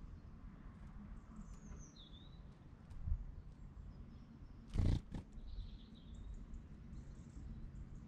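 Garden ambience with a few short, high wild-bird chirps and a brief falling whistle. A low thump comes about three seconds in, and a loud, brief burst of noise about five seconds in.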